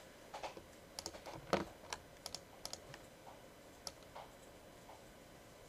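Faint, irregular clicking at a computer from the mouse and keys, about a dozen short clicks in all.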